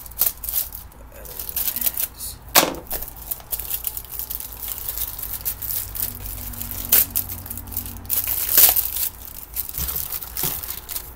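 Plastic packaging crinkling and tearing as it is cut open and handled, in irregular crackles, with a few louder rustles about two and a half, seven and eight and a half seconds in.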